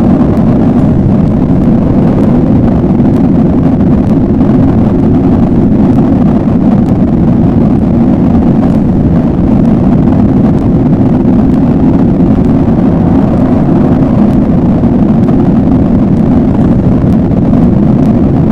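A loud, steady low rumble with no clear pitch, a dark ambient rumble used as a Grim Reaper sound effect, with faint scattered crackles above it.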